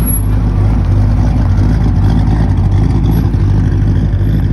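Classic Ford F-100 pickup's engine running as the truck drives slowly past and away, a steady low engine note with no clear revving.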